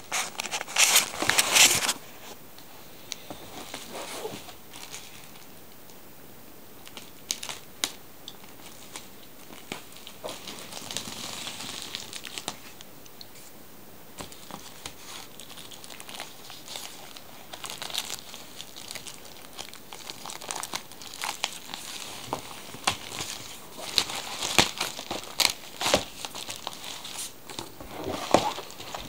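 Clear plastic wrapping crinkling and crackling as it is pulled off a magazine, busiest at the start and again over the last several seconds, with sparser rustles in between.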